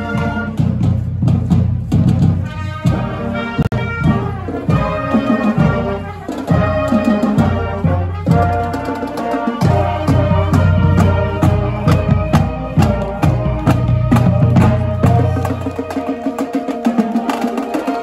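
Marching band playing on the march: brass (trumpets, sousaphones, saxophones) carrying the tune over bass drum and cymbals keeping a steady beat.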